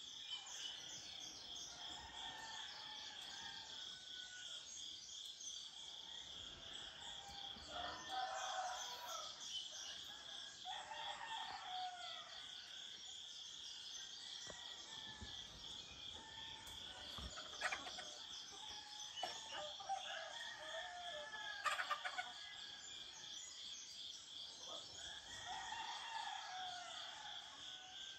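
Roosters crowing a few times over a steady, pulsing drone of insects, with a few short chirps and clicks.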